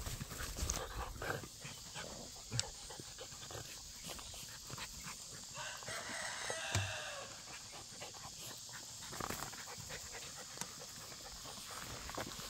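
Faint sounds of American Bully puppies playing and moving about in grass, with scattered small rustles and clicks and a short animal call about halfway through.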